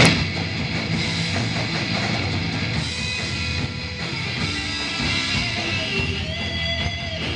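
Electric guitar played over a rock band with a drum kit at a sound check, with a few long held notes near the end.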